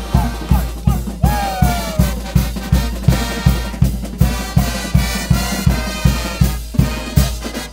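Brass band playing a fast, upbeat tune: trumpets and trombones over a steady bass-drum beat of about three hits a second.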